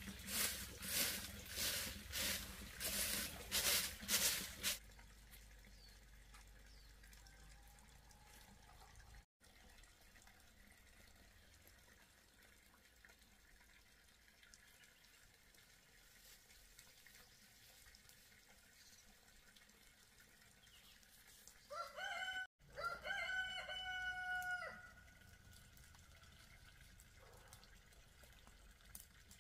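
A rooster crowing once, a call of about three seconds that rises and then holds, about three-quarters of the way in. Before it, for the first few seconds, a louder run of rhythmic strokes at about two a second, which stops suddenly.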